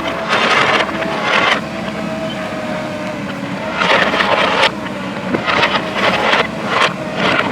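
JCB backhoe loader's diesel engine running steadily while working, with several louder surges of rough noise at irregular intervals of a second or two.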